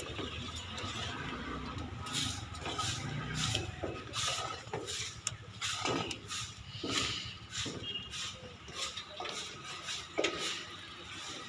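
Footsteps at a walking pace, about one every half second to second, ending with steps on steel diamond-plate stair treads.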